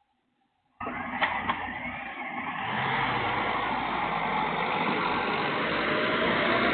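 A car on the move during a push start: after near silence a loud, noisy rush of engine and road sound cuts in about a second in, with two sharp clicks just after, then builds and holds steady.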